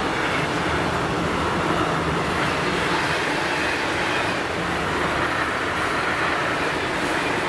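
Long intermodal freight train of container and swap-body wagons rolling past, a steady noise of wheels running on the rails.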